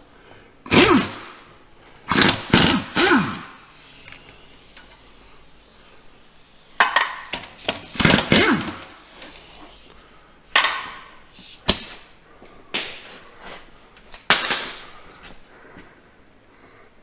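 Impact wrench running in short bursts, about a dozen, some in quick runs of two or three, as it backs bolts out of the PTO housing on a Farmall 806 tractor.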